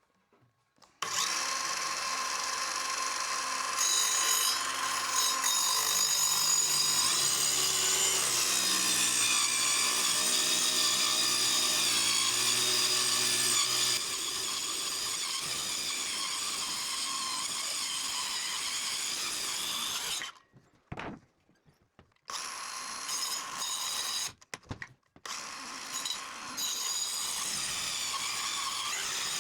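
Power saw running as it cuts through timber window frames, trimming them to width along marked lines. It starts abruptly about a second in and cuts out suddenly twice near the end.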